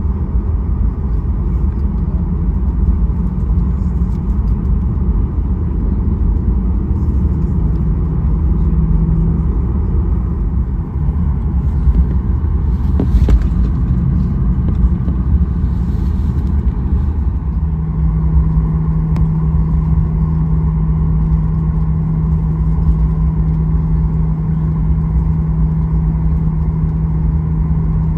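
Steady low rumble inside the cabin of a Boeing 737-800 airliner, with a steady hum joining about two-thirds of the way through.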